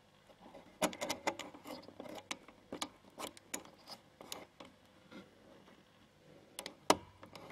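Irregular light clicks and taps of a metal screwdriver tip prodding wires and solder joints inside a guitar amplifier chassis. There is one sharper click just before the end.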